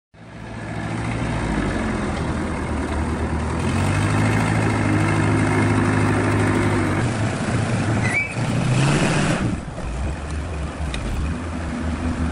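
A large engine running steadily, with a short burst of hissing about eight seconds in.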